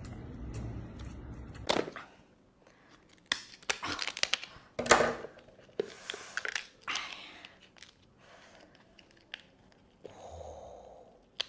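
Kitchen shears snipping through the hard shell of a cooked king crab's legs, a run of sharp cracks and snips, loudest about halfway through, with the shell cracking as it is cut and pulled apart.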